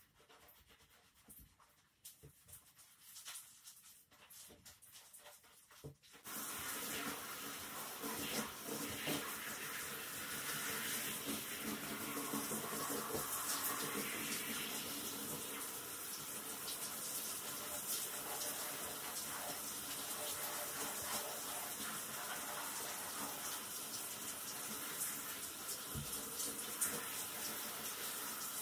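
Quiet at first, then about six seconds in a handheld shower head starts spraying water steadily onto a wet Shetland Sheepdog's coat.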